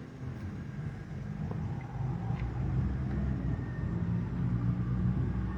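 Low engine rumble of a passing motor vehicle, growing louder about two seconds in, with a faint tick about halfway through.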